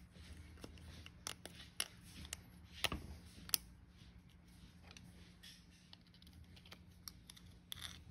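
Light scattered clicks and taps of a shaft oil seal and small metal parts being handled and worked by hand in a pump housing, a few sharper ones about three seconds in, over a steady low hum.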